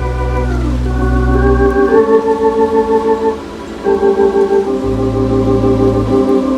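Organ playing a slow melody over sustained chords, the sound pulsing evenly with tremolo. Deep bass notes sound under the first couple of seconds and again near the end.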